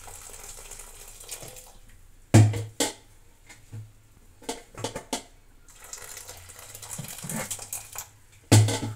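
Cooking water from boiled toor dal poured through a cloth strainer into a steel pot, splashing steadily. Then a run of sharp knocks and clanks from the steel vessels being handled, the loudest about two and a half seconds in and another near the end.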